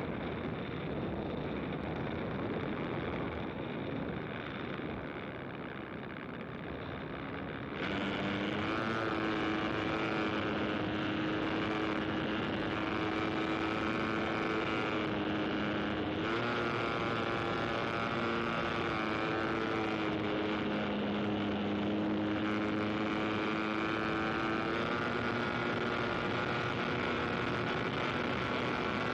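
An engine drone with a steady pitch that shifts slightly now and then. It comes in abruptly about eight seconds in, after a stretch of wind-like hiss.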